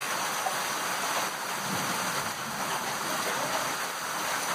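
Heavy downpour mixed with hail: a steady, dense hiss of rain and hailstones pelting the ground.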